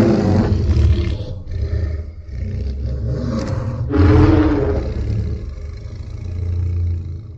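Custom-made Godzilla roar sound effect: a long, low, growling roar that swells twice, loudest at the start and again about four seconds in, then fades away near the end.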